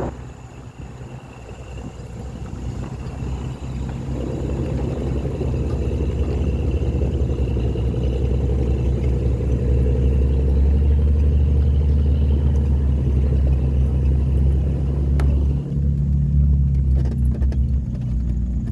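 Jeep engines running with a low rumble, growing louder over the first several seconds and then holding steady, with a few clicks near the end.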